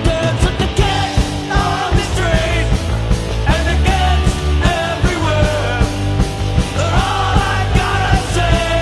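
Rock band song: a singer over drums, electric guitar and bass.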